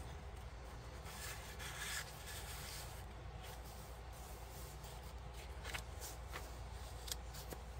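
Paper pages and cards of a handmade journal rustling and sliding under the hands as they are lifted and turned, with a few faint ticks.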